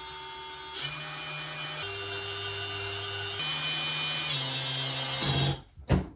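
Cordless light-duty drill driving a small bolt and washer into a bumper's pilot hole, its motor whirring steadily for about five and a half seconds, the pitch shifting up and down a few times as the trigger and load change. A sharp knock follows just after it stops.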